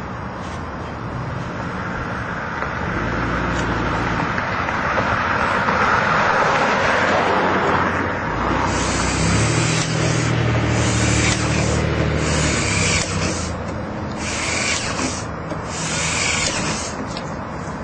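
Cordless drill running in about five short bursts of roughly a second each through the second half, over a steady low motor hum. It is preceded by a steady rushing noise in the first half.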